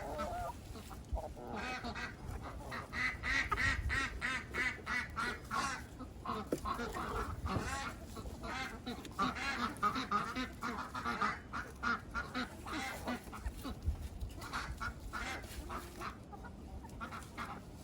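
Backyard ducks quacking over and over, many short calls in quick runs.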